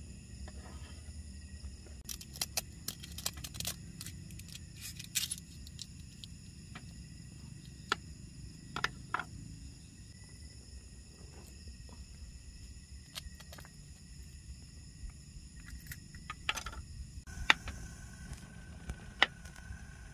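Metal tongs and cooking utensils clicking and clinking against a wooden cutting board and plate in scattered taps, over the steady low hiss of a lit camping gas stove burner and the constant chirring of insects.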